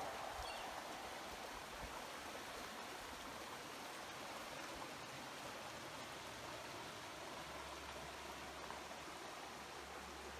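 Shallow stream flowing over rocks: a faint, steady rushing of water.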